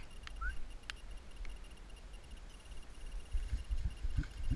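Footsteps and brushing through dry undergrowth: a few sharp twig snaps in the first second and a half, then a run of dull thuds near the end, over a faint steady high tone.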